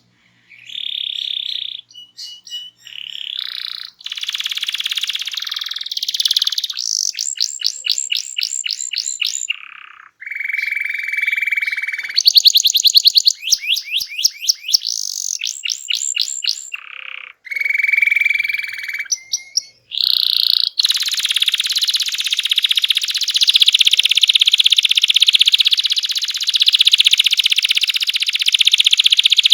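Domestic canary in full, forceful song: varied phrases of fast trills, rapid runs of repeated notes and held whistled notes. About two-thirds of the way through it breaks into one long unbroken rolling trill.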